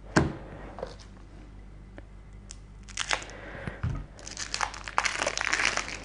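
A sharp thump, a few light knocks, then from about four seconds in a dense run of plastic wrapping crinkling and tearing as it is pulled off a stack of board-game cards.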